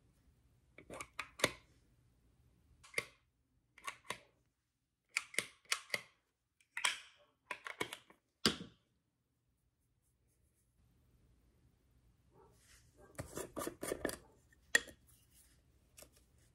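Makeup containers being handled: a series of short clicks and taps over the first several seconds, then, after a few seconds of silence, a denser stretch of soft rustling and tapping as a powder puff is worked in a loose-powder jar.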